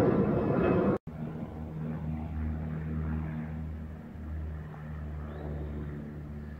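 Small business jet passing overhead: loud, rushing engine noise that cuts off abruptly about a second in. It is followed by a quieter, steady, low aircraft engine drone with a slight pulse that slowly fades.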